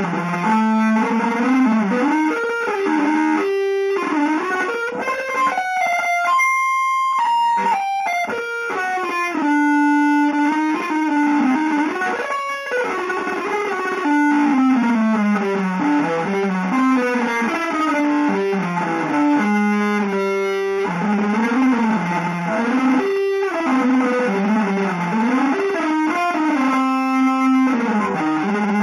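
Electric guitar with effects playing a free, improvised single-note melodic line that winds up and down, with a high note held for a couple of seconds about six seconds in.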